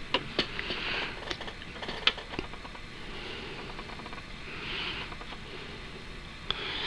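Faint handling noise: a few light clicks and soft rustles.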